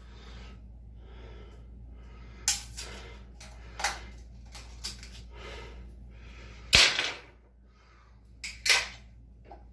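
Molson Canadian beer can being handled for a shotgun: a series of sharp metallic clicks and pops, the loudest about two-thirds of the way through, with short noisy rushes in between.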